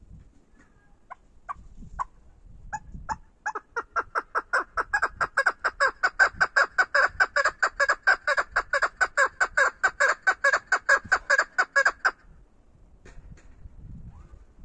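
Caged chukar partridge hen calling. A few spaced notes lead into a fast, even run of clucking notes, about five or six a second, that stops abruptly about twelve seconds in.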